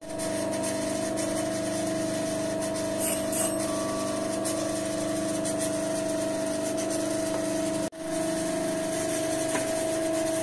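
Half-speed bench grinder fitted with 250 mm CBN wheels running steadily: a constant motor hum with a steady whine. The sound cuts out for an instant about eight seconds in.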